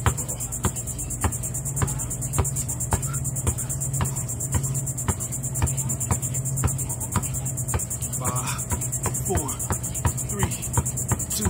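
A basketball dribbled on concrete in steady back-and-forth crossovers, about two bounces a second. Behind it runs a constant pulsing high-pitched drone of insects.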